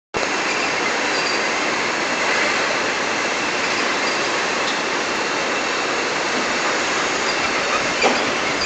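Steady machinery din of a packaging line: steel case conveyors running, with faint rattles and a single knock about eight seconds in.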